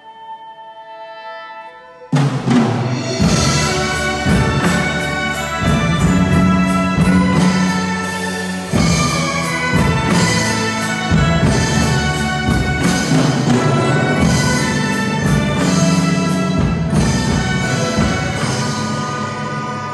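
A Chinese orchestra of huqin fiddles, other traditional instruments and drums plays a piece. A soft sustained passage gives way about two seconds in to a sudden loud full-ensemble entry, with repeated drum strikes under held chords, easing off a little near the end.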